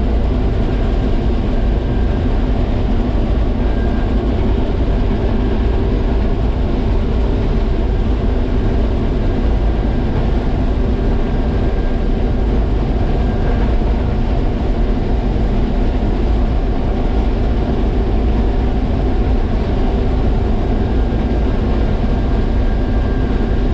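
International 1420 combine running steadily under load while harvesting soybeans: a constant engine drone with a heavy low end and the rumble of the threshing machinery.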